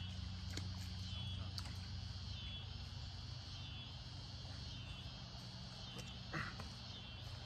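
Insects chirping in a steady pulsing chorus, about two pulses a second, over a low steady hum. There are a few faint clicks, and a short rustle about six seconds in.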